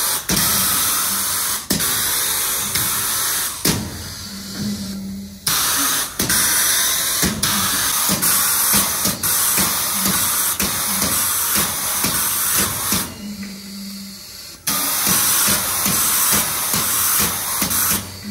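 Compressed air hissing in long bursts that start and stop abruptly as the air springs of a pneumatic motion base are filled and vented. Through the middle stretch, rapid clicks and knocks run under the hiss.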